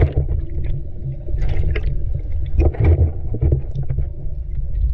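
Muffled underwater sound from a submerged camera as a snorkeler dives: a steady low rumble with short, irregular bursts of bubbling and gurgling.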